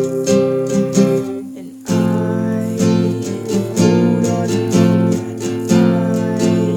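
Acoustic guitar strummed in a steady rhythm of chords; the strumming dies away briefly just before two seconds in, then comes back in strongly.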